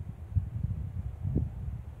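Wind buffeting the microphone: an uneven low rumble that rises and falls in gusts.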